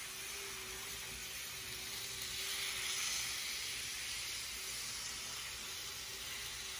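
N scale model locomotive and train running on Kato Unitrack, a steady faint hiss of the small motor and wheels on the rails. It grows louder as the train comes closest, about three seconds in, then eases off.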